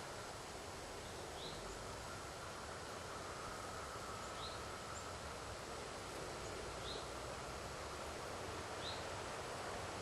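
Faint chorus of 17-year periodical cicadas, a steady drone, with a bird repeating a short rising high note every couple of seconds.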